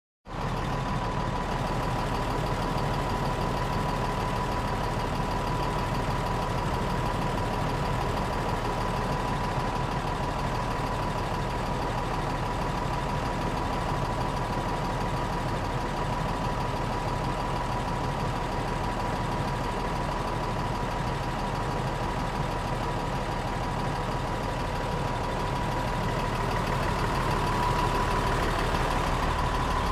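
Bus engine running steadily, with a thin high whine held over the engine noise; it gets a little louder near the end.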